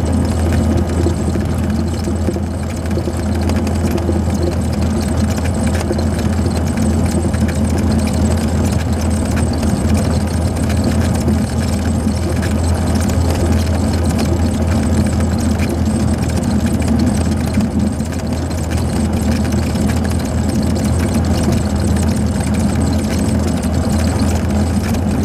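Cessna 182 Skylane's six-cylinder piston engine running steadily at low taxi power, heard from inside the cabin.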